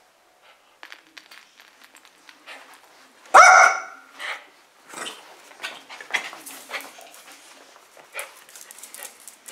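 Small dog barking: one loud bark a little over three seconds in, then several quieter barks, over light clicks and rustles.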